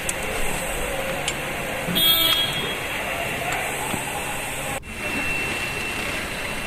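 Steady workshop background noise with a short vehicle horn toot about two seconds in, and a few faint metallic clicks of a spanner on bolts being started by hand.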